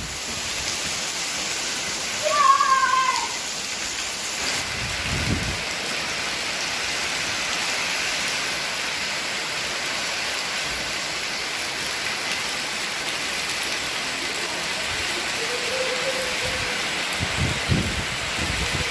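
Heavy rain pouring steadily as a continuous even hiss, with a brief low rumble about five seconds in and again near the end.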